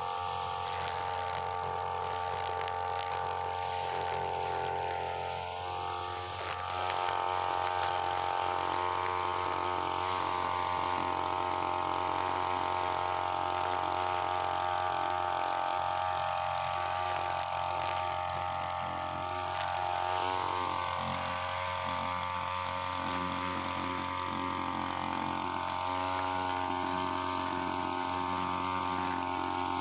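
UMA UM328 brush cutter engine running at working speed, its toothed 3.0 mm nylon line cutting tough grass down to the soil. The engine note holds steady and gets a little louder about seven seconds in.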